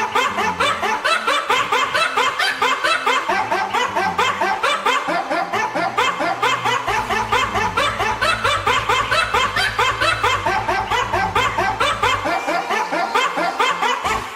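Fast, evenly repeating snickering laughter, about six laughs a second. A low steady bass note joins about six seconds in and stops about twelve seconds in.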